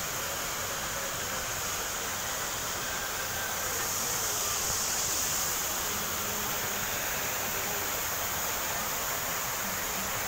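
Water jets of a ground-nozzle fountain splashing down: a steady rushing hiss of falling spray, a little louder around the middle.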